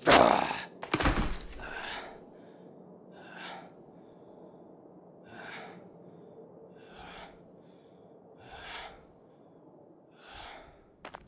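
A man gasping for breath: two loud, ragged gasps in the first second and a half, then slower, softer breaths about every one and a half to two seconds, with a short click near the end.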